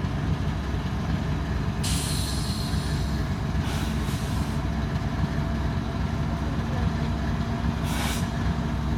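CSX diesel freight locomotive running with a steady low rumble. Three hisses of released air cut in over it: a long one about two seconds in, a shorter one about four seconds in, and a brief one near the end.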